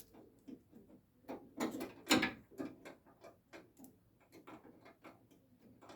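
Irregular small clicks and knocks of metal hardware inside a car door as fingers fumble to hook the inside door-handle rod into its clasp on the latch mechanism, the loudest knock about two seconds in.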